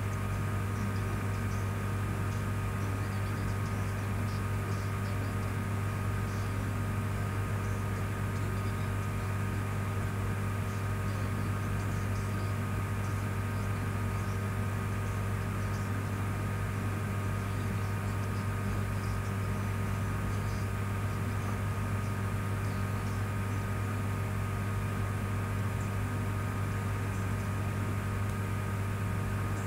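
Steady low hum with a faint hiss over it, unchanging throughout.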